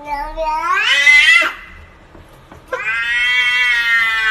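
Domestic cat yowling in long drawn-out calls. The first rises in pitch and breaks off about a second and a half in. A second long, steady yowl starts near the end.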